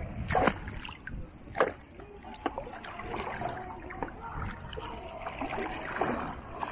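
Shallow bay water sloshing and splashing around a camera held at the surface, with a few sharp splashes about half a second, a second and a half and two and a half seconds in.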